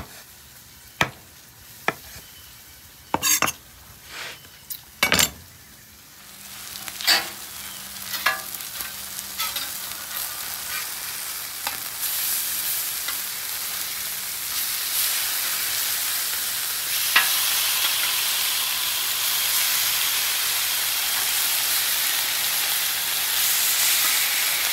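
A few separate knife chops on a cutting board over the first five seconds. Then seasoned chicken breasts sizzle on a flat-top griddle, the sizzle growing and holding strong from about halfway through as they are flipped with a spatula.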